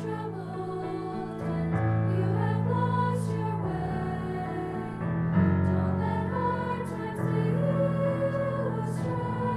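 High school choir singing in harmony over sustained accompaniment chords, the harmony shifting every second or two.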